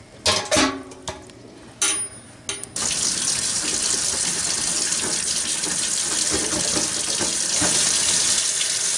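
A few sharp knocks in the first three seconds, then a faucet running steadily into a utility sink, the water splashing over a stainless steel stove part held under it.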